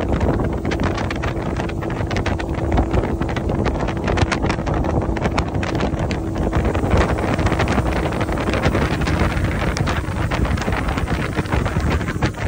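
Wind buffeting the microphone on a fishing boat under way, over the steady hum of the boat's outboard motor running at a constant speed.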